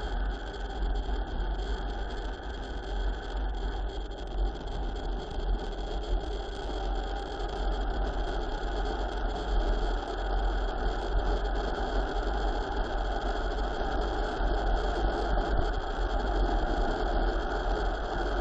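Steady wind rush and low rumble buffeting the microphone of a camera on a mountain bike speeding downhill.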